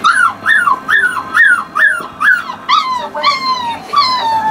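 Young Anglo Wulfdog puppy whining in a rapid run of short, high cries, each rising then dropping in pitch, about two a second; the last two cries, near the end, are longer and slide down.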